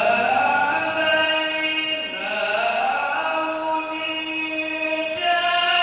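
A qori's voice reciting the Qur'an in the melodic tilawah style through a microphone, holding long notes with bending, ornamented glides between them. A fresh phrase begins about two seconds in and another near the end.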